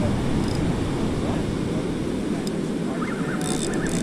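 Steady wind rumble on the microphone over the wash of breaking surf.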